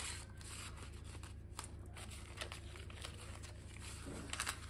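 Quiet rustling and crinkling of paper dollar bills and a clear plastic cash envelope being handled, with a few short swishes.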